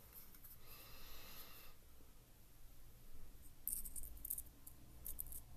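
Quick, light clicks and rattles of small metal parts being handled, starting about two thirds of the way in: a brass pocket-watch bezel knocking against its holder as it is fitted on.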